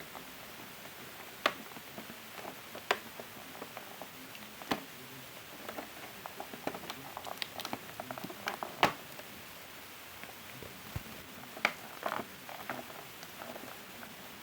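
Action-figure packaging being opened by hand: irregular sharp clicks, taps and small crinkles of cardboard and plastic, a few louder snaps among them.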